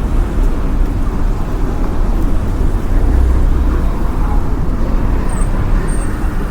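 City street ambience: a steady rumble of road traffic, with a faint series of high beeps starting near the end.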